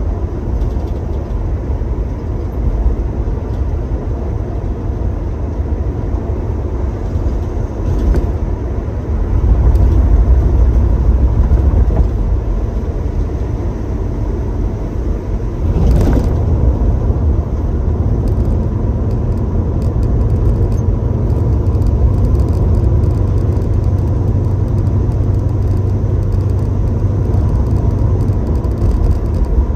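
1966 Chevrolet Chevelle driving, heard from inside the cabin: a steady low engine and road rumble. The rumble grows louder about ten seconds in, and again about sixteen seconds in with a short knock.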